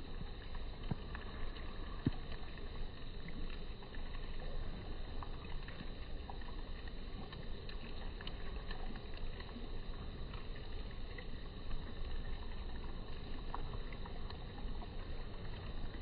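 Steady low rumble and hiss of outdoor background noise, with a few faint clicks, one sharper about two seconds in.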